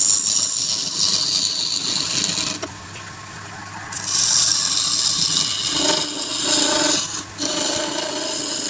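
Tool held against spinning wood on a lathe, a loud hissing scrape. It drops away for about a second and a half partway through, then resumes with a brief break near the end.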